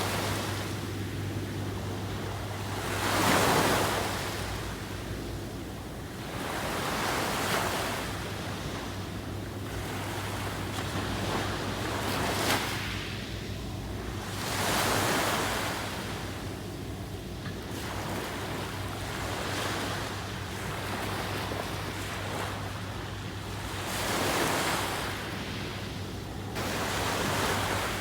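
Ocean waves breaking and washing on a beach, in slow surges that swell and fade every few seconds.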